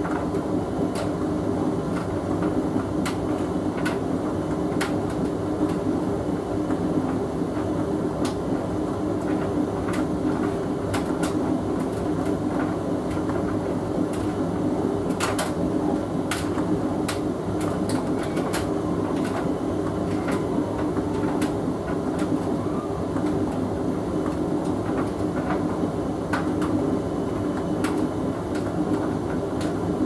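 Hoover VHV680C vented tumble dryer running, its drum and motor giving a steady hum and rumble. Scattered light clicks and taps sound over it as the load tumbles.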